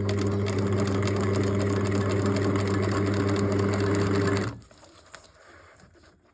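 Sewing machine stitching at a steady speed for about four and a half seconds, then stopping abruptly.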